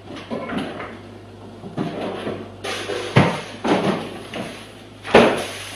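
Refrigerator door opened with a knock about three seconds in, then shut with a louder thump about two seconds later, with faint handling sounds before.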